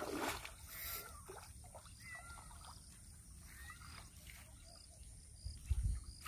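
A hooked fish thrashing at the water's surface, splashing loudly right at the start. After that, faint chirping calls and a low thump or buffet near the end.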